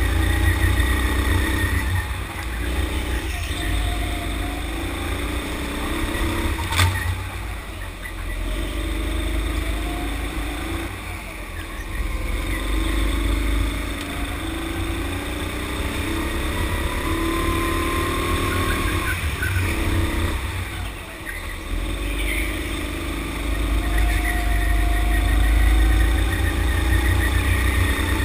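Sodi rental go-kart engine, heard from on board, running hard around the track: its pitch climbs as it accelerates and drops back as the throttle lifts for each corner, again and again. A single sharp knock comes about seven seconds in.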